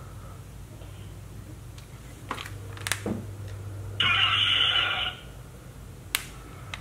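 A few light clicks and knocks from handling the BMW gear shifter mechanism, over a steady low hum, with a one-second buzzing tone about four seconds in.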